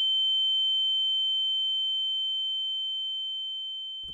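A steady, high-pitched electronic tone with a fainter lower tone beneath it, slowly fading.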